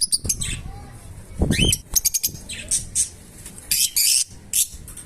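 Lovebirds chirping in short, high calls, with a rising call about a second and a half in and a few short noisy bursts of wing flapping.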